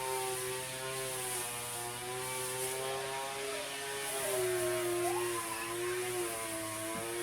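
Steady whirring hum of a small electric motor or fan, its pitch drifting slightly.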